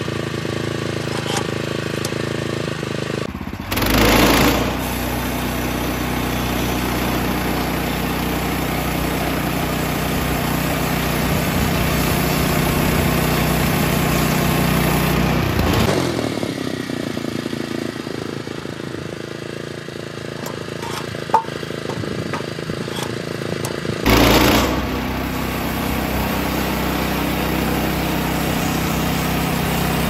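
Small gasoline engine on a Woodland Mills HM126 bandsaw mill running steadily, with two short louder surges, about four seconds in and again near the end.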